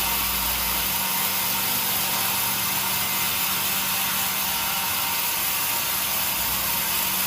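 Sawmill saw machinery running steadily: an even hiss with a constant low hum underneath.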